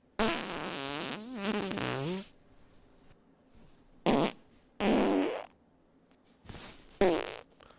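Recorded farts played one after another: a long, wavering one lasting about two seconds, then three short ones spaced a second or so apart.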